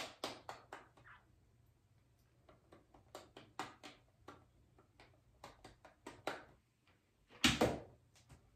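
Hair straightener's plates clicking together in quick, irregular taps as it is clamped along a strand of hair twisted around it. Near the end comes a single louder brushing thump.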